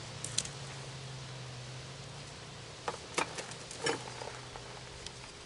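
A few faint, sharp metallic clicks and knocks of a wrench being fitted to and worked on a portable generator's oil drain plug, which is tight. A faint low hum underneath fades out about halfway.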